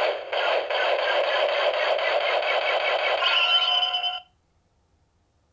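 CSM Decadriver toy transformation belt playing the Kuuga Ultimate Form transformation sound effect through its small built-in speaker: a dense, tinny wash of effects with a few ringing tones near the end, cutting off about four seconds in.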